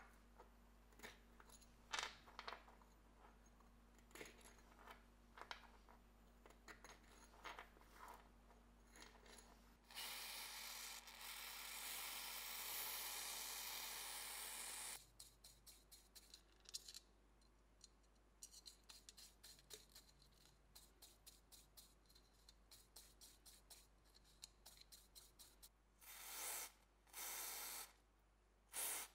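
Faint workbench handling: scattered light clicks and taps, then a steady hiss lasting about five seconds, a run of quick light clicks, and short hissing spurts near the end.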